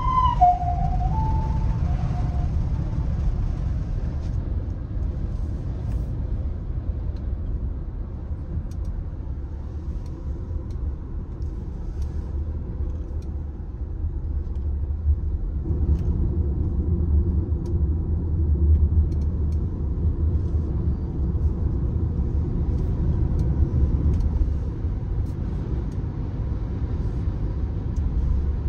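Steady low road rumble of a moving car heard from inside the cabin, growing somewhat louder about halfway through. In the first two or three seconds, a passing Japanese ambulance's two-tone siren alternates between a high and a lower note, then fades out.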